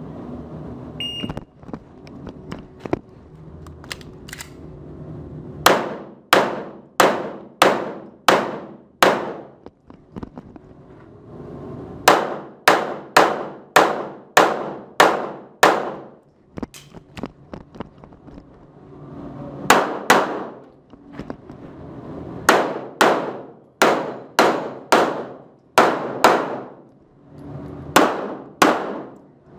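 A short high beep about a second in, the shot timer's start signal. Then a 9x19 STI Edge pistol fires rapid strings of shots, several shots per string with pauses of a second or more between strings, each shot ringing with echo in the enclosed indoor range.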